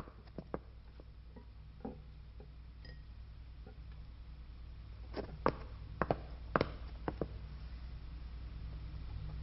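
Crockery and cutlery being handled: scattered light clinks and knocks of plates, cups and utensils, a quick run of them about five to seven seconds in, over a low steady hum.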